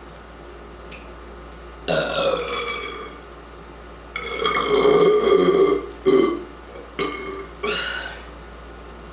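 A person burping from carbonated root beer: five burps in a row. The first falls in pitch, the longest lasts nearly two seconds in the middle, and three shorter ones follow near the end.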